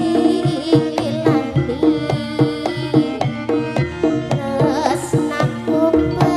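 Live jaranan accompaniment from a Javanese gamelan-style ensemble: kendang hand drums keep a steady beat under struck gong-chime and metallophone tones, with a wavering melody line above.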